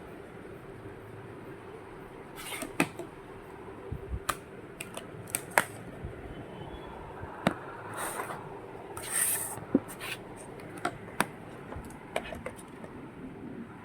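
Irregular sharp clicks and short scrapes, about a dozen, as small electronic parts and test leads are handled on a workbench, over a steady faint hum.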